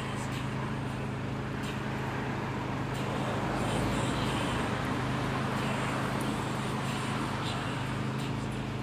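City traffic noise over a steady low mechanical hum. The traffic noise swells for a second or two about four seconds in, as if a vehicle passes.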